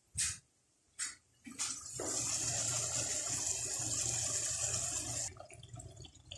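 Two short clicks, then raw chicken pieces sizzling in hot oil with sautéed onion and garlic in a wok, the chicken just added. The sizzle builds over about a second, holds steady, and eases near the end.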